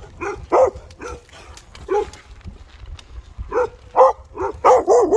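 A dog barking repeatedly, with single barks spaced out at first, then a quick run of barks, about three a second, near the end.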